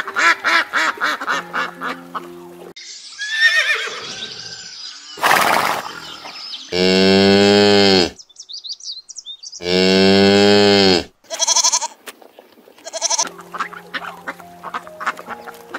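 White domestic ducks quacking in quick runs of calls over background music, then a cow mooing twice in long calls about a second apart, then the ducks quacking again.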